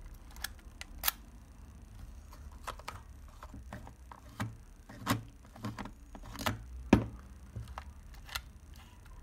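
Irregular sharp clicks and small knocks of a Leica IIIg rangefinder body and its Elmar 5 cm lens being handled and the lens unscrewed from the screw mount. The two loudest clicks come about a second in and about three quarters of the way through.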